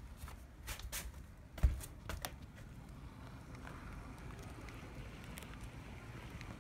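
HO-scale brass model of an SBB Ce6/8 II 'Crocodile' electric locomotive running on track, a faint steady rolling and motor noise. In the first two seconds come a few sharp clicks and one loud knock about a second and a half in, the loudest sound.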